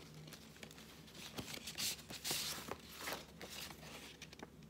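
Faint rustling and sliding of paper as a paper envelope is opened and a card drawn out of it, in a few soft bursts that are strongest about two seconds in.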